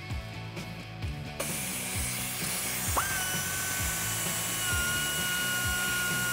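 Quarter-inch air ratchet running as it backs out the 8 mm bolts of the driveshaft flange at the transfer case. A rush of air hiss starts about a second in, and about three seconds in the tool spins up to a steady high whine. Background music with a steady beat plays underneath.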